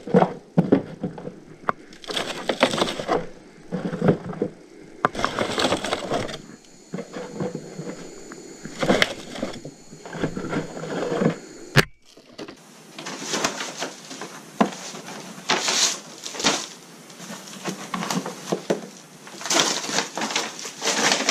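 Potatoes being set by hand into a brown paper bag: irregular soft knocks of potatoes landing on the paper and against each other, with the paper bag rustling and crinkling.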